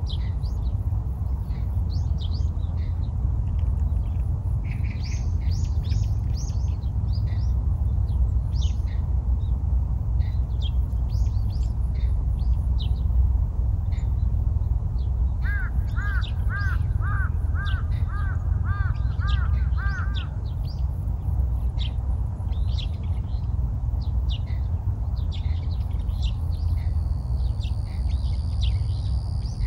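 Small birds chirping on and off over a steady low rumble. About halfway through, a bird gives a run of about ten short ringing calls, about two a second, and near the end a steady high whine sets in.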